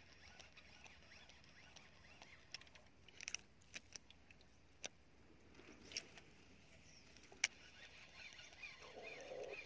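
Near silence broken by a scattering of faint, short clicks and taps, with one sharper knock about seven and a half seconds in.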